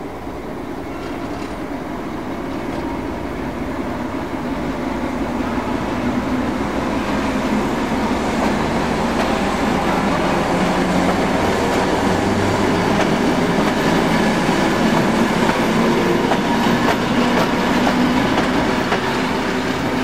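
Diesel-electric 'Brejlovec' locomotive hauling a passenger train, its diesel engine running under load and growing steadily louder as it approaches and passes.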